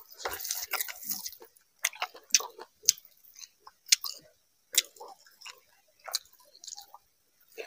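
Close-miked eating with the fingers: wet squelching as the hand works rice into curry gravy, then open-mouthed chewing with scattered sharp wet smacks and clicks.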